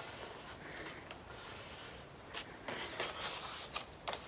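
Folded cardstock paper rubbed and pressed flat against a desktop by hand to crease it, a soft scratchy rubbing, with a few brief papery rustles over the last couple of seconds as it is handled.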